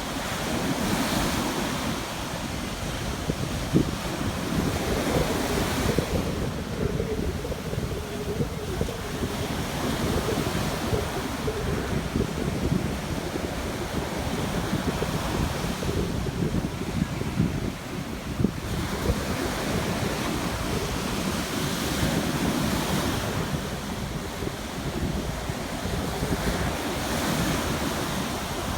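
Mediterranean sea waves washing onto the shore in slow, repeated swells, with wind buffeting the microphone as a continuous low rumble.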